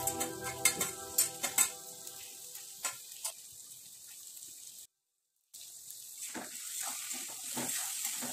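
Vegetables sizzling in hot oil in a metal wok, with sliced carrots tipped in and landing as a run of sharp clicks in the first second or two. After a brief silent cut about five seconds in, a steel spatula stirs and scrapes the vegetables against the wok.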